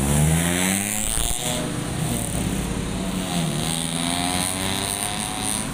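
Road traffic going by: cars and motorcycles passing, their engine notes sliding up and down in pitch as they approach and pass.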